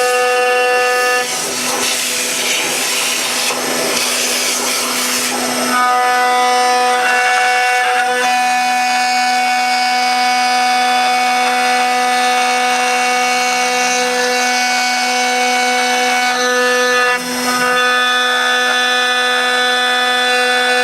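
CNC router spindle with a 1/4" down-cut bit cutting out the shape of a Karri hardwood banjolele neck: a steady high whine, with rougher cutting noise from about one to six seconds in and a brief dip in level near the end.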